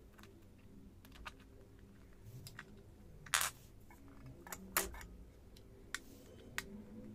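Sharp metallic clicks and clinks from brass snap-setting dies being fitted together and pressed in a cast-iron hand press to set a metal snap. Two louder strikes stand out, a little over three seconds in and about a second and a half later, among several lighter clicks.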